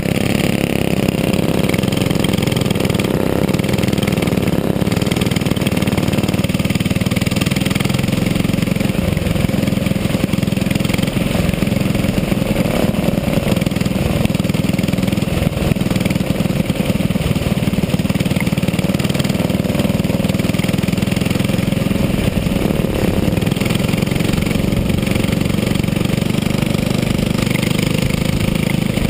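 Racing kart engine running at race speed, heard close up from on board the kart. Its note rises and falls in pitch as the throttle comes on and off around the track.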